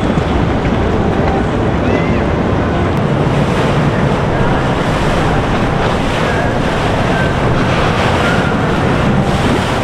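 Steady loud rush of wind on the microphone mixed with boat and water noise.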